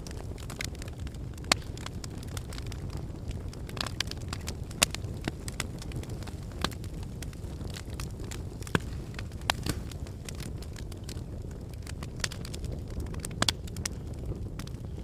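Wood fire in a fireplace crackling, with sharp, irregular pops over a steady low rush of the flames.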